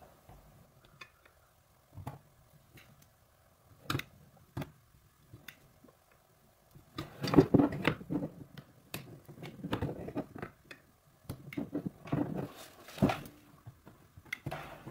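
Handling noises of plastic welding: scattered light clicks and taps, then from about seven seconds in a busier run of scraping, rustling and clicks as a plastic welding gun's hot tip and filler plastic are worked into a crack in a snowmobile's plastic hood.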